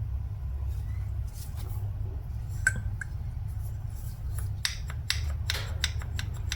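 Light clicks and taps of small metal engine parts being handled: a new connecting rod and its bearing shells, several quick clicks bunched together in the second half. A steady low hum runs underneath.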